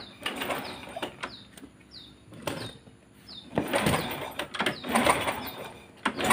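A motorcycle's engine is kicked over in several noisy cranking strokes, the loudest in the second half, while its ignition coil is checked for spark. A small bird chirps about twice a second, each chirp a short falling note.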